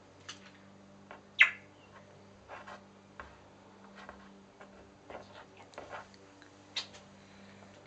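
A galah eating from a metal dish: irregular small clicks and crunches of its beak picking at and biting food, the loudest about one and a half seconds in. A faint steady hum runs underneath.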